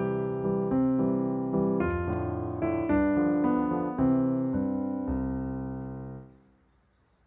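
Background piano music; a last chord is struck about five seconds in and fades away, leaving near silence.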